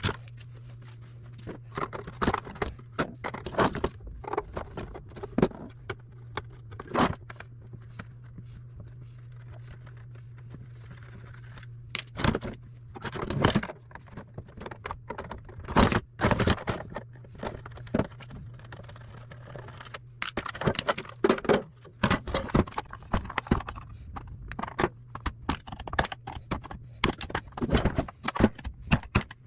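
Tools and small metal parts clicking, clinking and scraping in irregular knocks while a food service scale is taken apart for scrap, over a steady low hum.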